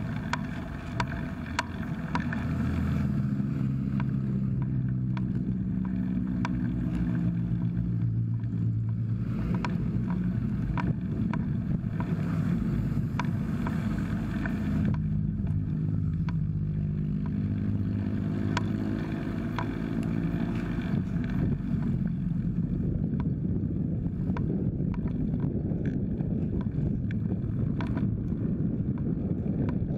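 Wind buffeting a bicycle-mounted camera's microphone over steady road rumble while riding, as motor vehicles pass alongside twice, their engine sound falling in pitch as they go by. Light ticks repeat regularly throughout.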